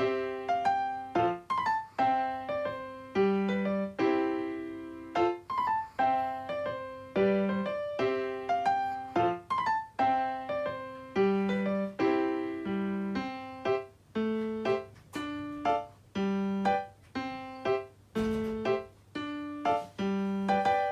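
Background piano music: a gentle melody of single notes and chords, each note struck and fading away.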